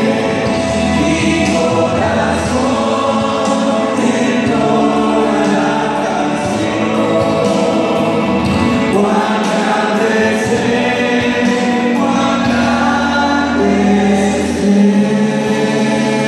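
A small mixed group of singers, a man and several women, singing a Christian worship song together in harmony into handheld microphones, amplified through a sound system. Long held notes throughout, with a steady low accompaniment beneath.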